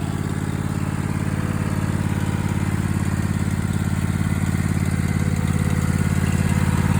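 Riding lawn mower's engine running steadily at idle, a low even drone that grows gradually louder.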